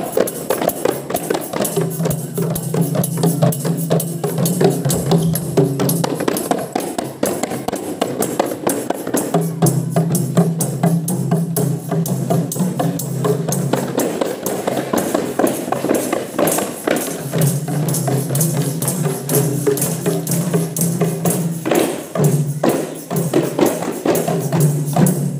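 A group of kompang, Malay hand-held frame drums, beaten with the palms in a fast, dense rhythm of sharp slaps. A low steady tone comes and goes beneath it in stretches of a few seconds.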